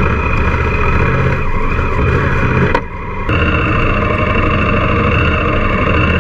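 Honda Africa Twin's parallel-twin engine running as the motorcycle rides along a rough farm track. The sound dips briefly about three seconds in, then carries on steadily.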